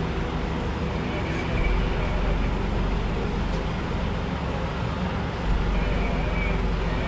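Parked fire engine's diesel engine running with a steady low drone.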